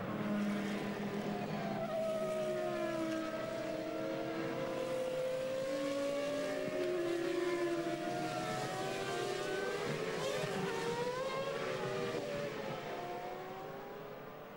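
Several 2001 Formula One cars' V10 engines going by in a line at reduced speed behind the safety car, their pitches sliding up and down as each car passes. The sound fades somewhat near the end.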